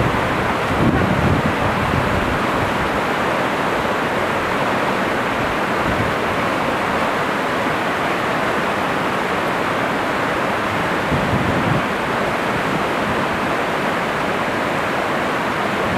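Steady rushing of a fast river pouring over whitewater rapids. Short gusts of wind on the microphone add a low rumble about a second in and again about eleven seconds in.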